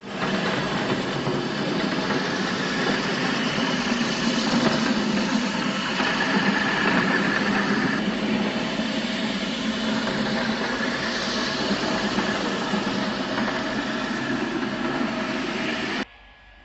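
Floor grinding machine running steadily as it wet-grinds a marble floor with its rotating stones. The sound cuts off suddenly near the end.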